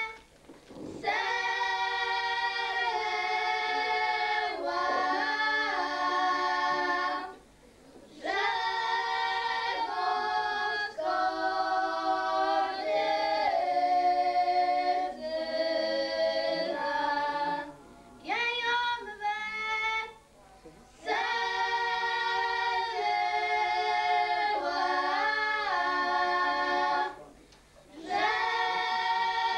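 Five girls singing a folk song together without accompaniment, in several voices. The song goes in long phrases separated by short breaks for breath.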